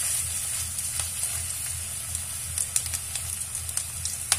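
A besan-coated peanut kabab sizzling steadily in hot refined oil in a frying pan, with scattered crackles and a sharp pop near the end.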